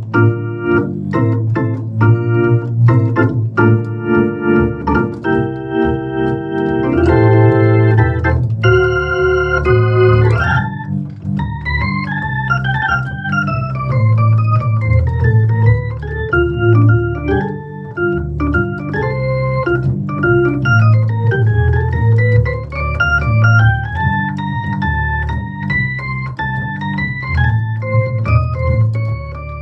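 Hammond XK-1c organ being played. It opens with short repeated chord stabs, then holds chords for a few seconds, and from about a third of the way in a quick single-note melody runs up and down over a steady bass line.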